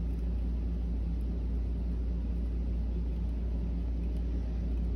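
Steady low rumble with a faint hum, unchanging throughout, with no distinct events.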